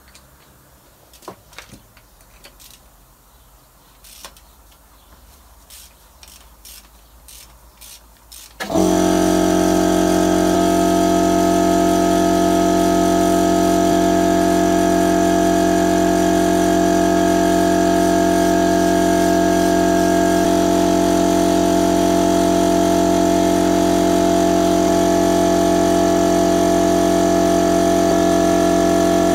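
Scattered clicks and knocks from a socket ratchet as spark plugs are undone. About nine seconds in, a loud, steady machine drone cuts in suddenly and runs on at constant speed.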